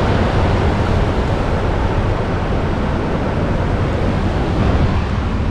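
Steady low rumble and hiss of wind buffeting the microphone, with the noise of the four-wheel drive moving along the beach sand.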